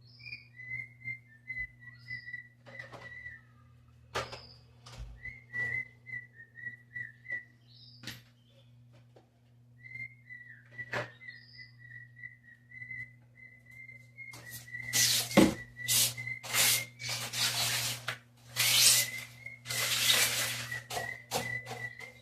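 A whistle wavering around one pitch, held in stretches of a few seconds, with scattered knocks; from about the middle on, loud bursts of scrubbing noise from housecleaning join it.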